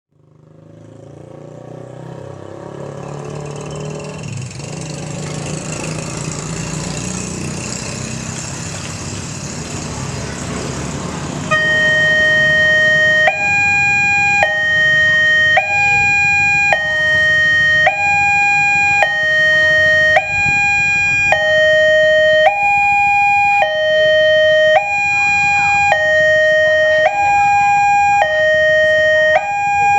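A broad rushing noise swells in, then about eleven seconds in an electronic railway level-crossing siren switches on loudly: a two-tone hi-lo alarm alternating between a lower and a higher tone about every second, warning that a train is approaching the crossing.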